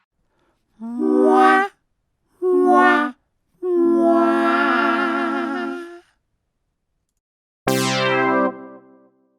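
A 'fail' sound effect: three pitched notes, two short and then one held for about two seconds with a wavering pitch. Near the end a second fail effect begins with a sudden pitched tone that dies away.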